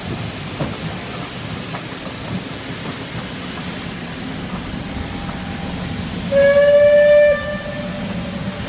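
Coaches rolling slowly past with a steady rumble and faint knocks of wheels over rail joints. About six seconds in, the whistle of the Bulleid Battle of Britain class steam locomotive 34070 Manston sounds once, loud for about a second, then trails off faintly.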